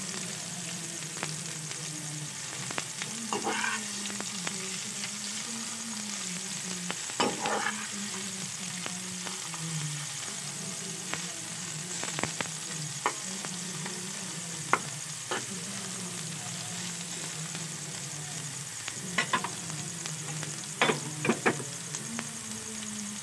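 Mung bean sprouts stir-frying in hot oil in a metal pan: a steady sizzle, with the metal spatula scraping and knocking against the pan every few seconds. A low hum runs underneath.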